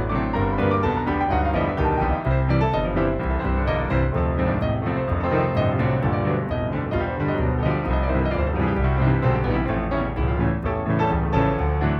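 Background music led by piano, playing steadily throughout.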